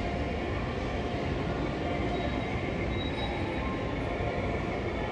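Steady low rumble of a large indoor shopping-centre atrium's background noise, even throughout with no distinct events.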